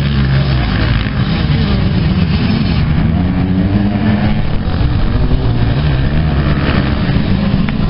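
A field of motocross bikes racing around a dirt track, several engines revving together with their pitch rising and falling as the riders work the throttle through the corners.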